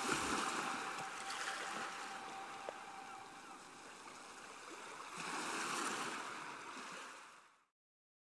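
Sea waves washing in, swelling twice, then fading out to silence near the end.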